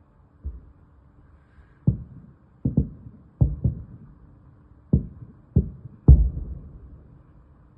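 Fireworks shells exploding: about nine muffled bangs at uneven intervals, some in quick pairs, each trailing off in a rumbling echo. The loudest bang comes about six seconds in.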